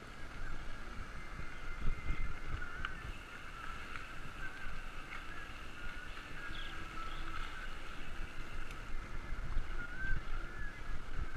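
Bicycle rolling over wet asphalt, with wind and road rumble on the handlebar-mounted camera. Over it runs a steady, wavering high squeak.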